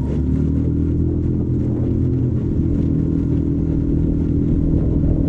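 Small outboard motor on a square-stern canoe running steadily under way, its pitch rising slightly in the first half second and then holding.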